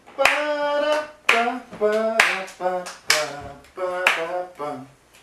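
A voice scat-singing a swing tune in wordless syllables, with five sharp hand claps on the beat about a second apart.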